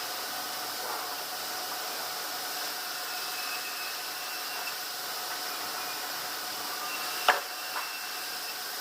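Sawmill machinery running with a steady hiss and a faint whine, and one sharp knock about seven seconds in, followed by a lighter knock.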